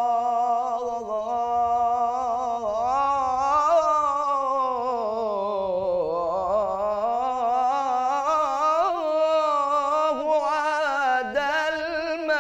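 A young male voice sings an Arabic religious nasheed (inshad) unaccompanied, holding one long, unbroken melismatic phrase with fine ornamental wavers. The pitch sinks to its lowest about halfway through and climbs back up.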